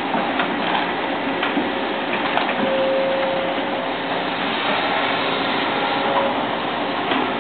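Sumitomo excavator working: steady running machine noise with a faint whine, and a few scattered light knocks.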